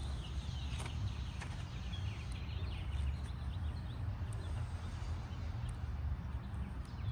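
Birds chirping, with short falling calls and quick high notes, over a steady low rumble. A couple of faint clicks come about a second in.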